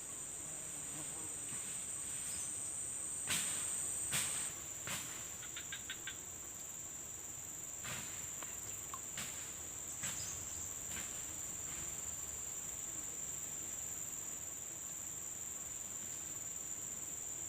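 Steady high-pitched drone of insects, which fades for a few seconds in the middle and then returns. A handful of sharp clicks and knocks come in the first ten seconds, including a quick little run of ticks about six seconds in.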